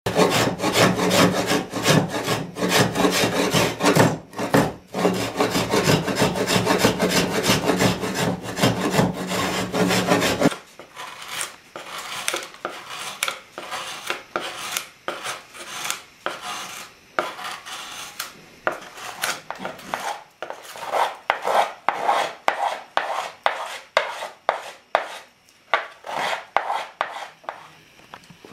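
Hand tools carving and scraping the wooden plate of a viola: dense, rapid gouge strokes for about the first ten seconds, then, after a sudden drop in level, quieter separate strokes, roughly two a second.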